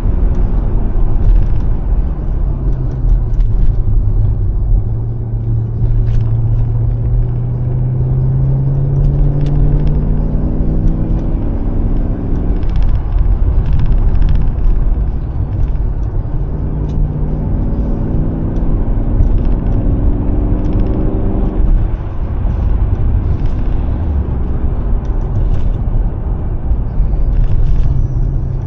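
Mercedes-AMG S63's V8 engine pulling under acceleration, its pitch climbing slowly over several seconds and dropping back about three times, over steady road rumble.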